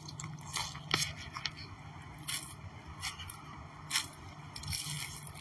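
Footsteps crunching through dry leaf litter and twigs at a walking pace.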